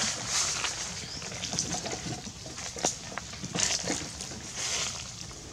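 Dry leaves rustling and crackling, with scattered light clicks, as baby macaques scramble about and handle leaves on the ground. No clear calls.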